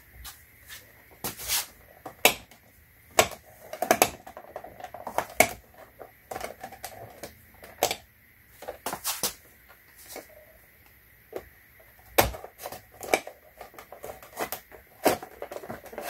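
Irregular sharp clicks and taps of plastic on plastic: hands and a plastic pry tool working at a Volkswagen Rabbit's side-mirror housing and turn-signal lens to pry it loose.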